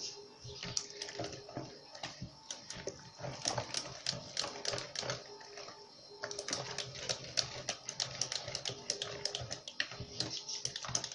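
Wire whisk beating a thick cornmeal batter in a mixing bowl: a fast, irregular clicking of the wires against the bowl as milk is worked in to thin the batter.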